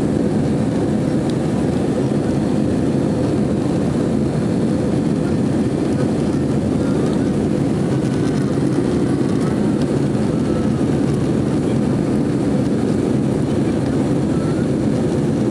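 Steady roar of jet engines and rushing air heard from inside an airliner's cabin as it climbs after takeoff.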